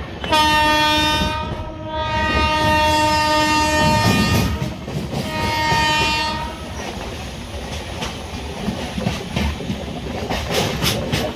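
Train horn sounding three blasts, short, longer and short again, heard from aboard the moving train. Then the running sound of the coaches, with wheels clicking over the rail joints.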